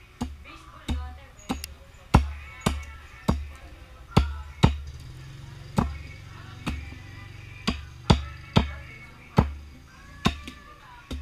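Machete chopping into an upright branch of jackfruit wood on a wooden chopping block: a run of sharp chops, roughly two a second, with a short pause about halfway through.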